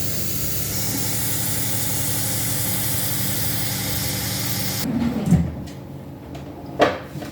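A kitchen appliance hisses steadily over a low hum, then cuts off suddenly about five seconds in. Two sharp knocks follow near the end.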